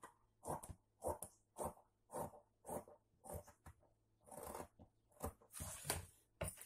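Fabric scissors snipping through folded cloth along a curved cutting line, a steady series of cuts about two a second, ending in a longer rustle of the cloth.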